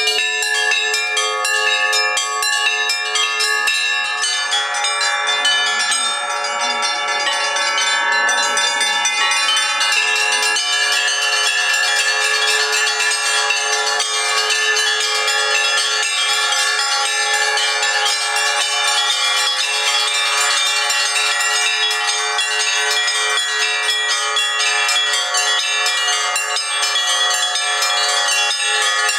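Russian church bells ringing a continuous peal: many bells struck in quick succession, their tones overlapping, with no deep bass bell sounding.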